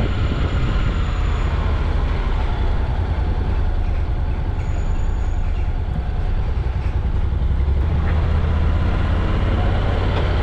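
Steady road and engine noise of a car driving, heard from inside the cabin, dominated by a deep continuous rumble.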